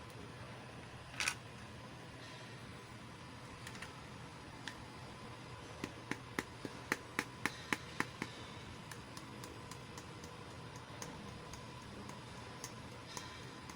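Small, sharp plastic clicks and taps from handling miniature toy pieces. There is one louder click about a second in, then a quick run of about nine clicks, roughly four a second, around the middle, and scattered fainter ticks after that, over a faint steady hiss.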